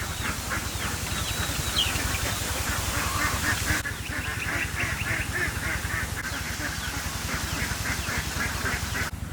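Birds calling in quick repeated notes, about four or five a second, over a steady low rumble.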